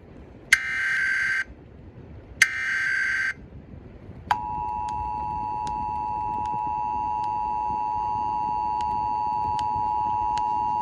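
Emergency Alert System broadcast: the last two of three one-second bursts of screechy digital SAME header tones, then about four seconds in the EAS two-tone attention signal (853 and 960 Hz sounded together) starts and holds steady.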